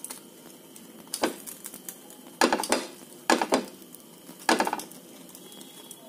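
Spatula pressing and scraping a flatbread against a nonstick frying pan: about five short scrapes spread over a few seconds.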